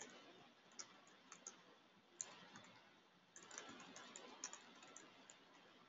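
Faint computer keyboard typing: scattered single key clicks, with a quicker run of keystrokes about three and a half seconds in.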